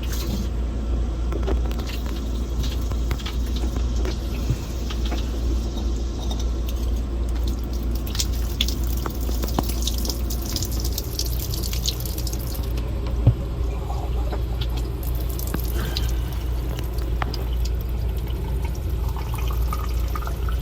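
Water spraying from a truck camper's shower head and splashing into the shower pan, where it is pooling rather than draining, with a steady low hum underneath. A single sharp knock comes about 13 seconds in.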